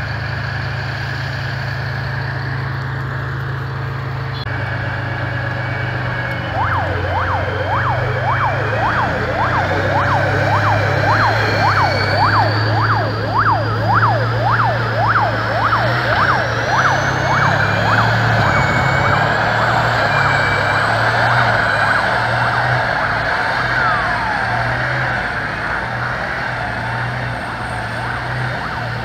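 Heavy vehicle engines running low and steady. About a quarter of the way in, an emergency siren starts yelping fast, about twice a second, for some ten seconds. Later it changes to slower rising and falling glides.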